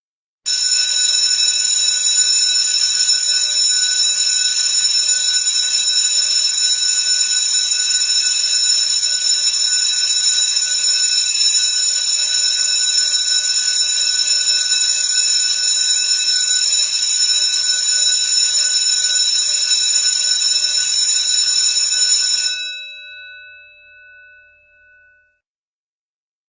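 Electric school bell ringing without a break for about twenty-two seconds, then switched off, its gong tones dying away over the next few seconds.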